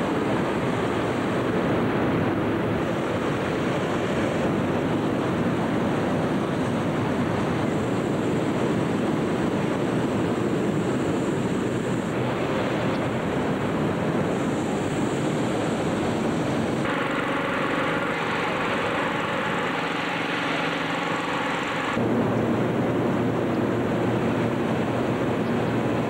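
Steady roar of many hot-air balloon inflator fans running at once inside a huge hangar. From about 17 to 22 seconds in, the steady hum of one nearer fan engine stands out over the roar.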